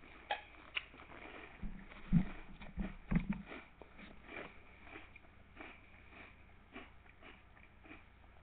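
Someone chewing a mouthful of Cheerios close to the microphone, a run of short crunching clicks. A few sharp clicks come near the start, and a cluster of louder dull thumps about two to three seconds in.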